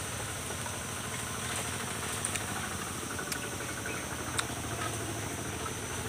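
A steady background hum, with a few short, sharp crunches from chewing raw vegetables. The loudest crunch comes a little past the middle.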